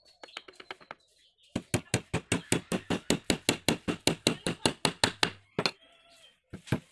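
A small hammer nailing a corner joint of a softwood frame: a few light taps, then about four seconds of rapid, even blows, roughly six a second, that stop near the end.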